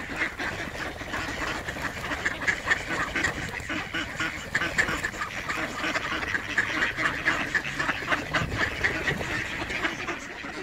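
A large flock of mallards quacking and calling over one another in a dense, continuous chorus of short calls.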